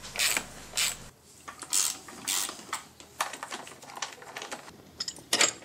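Hand socket ratchet clicking in short runs between louder scraping strokes, as fasteners are worked loose while the intake is taken off an engine.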